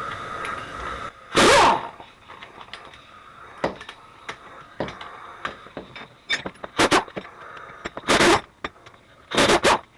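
Four short, loud bursts as the hex-socket screws on a hydraulic cylinder are worked loose, with light metallic clicks of tools and parts in between.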